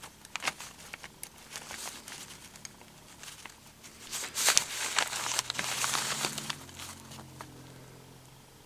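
Adjustable spanner being fitted onto the old brass tap: scattered light metal clicks, then a louder stretch of rustling, scraping handling about four to seven seconds in that fades out.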